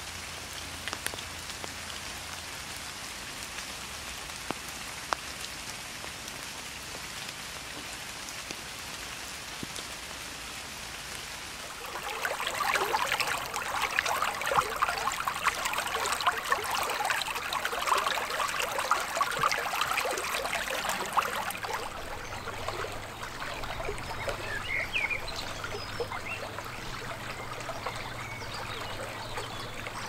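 Steady rain falling on grass, with single drops ticking, then from about twelve seconds in a shallow stream running and babbling over its bed, loudest for the next ten seconds and then steadier, with a few short high chirps near the end.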